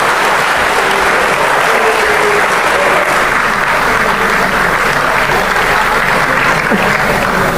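Large audience applauding steadily, many people clapping together at the end of a speech.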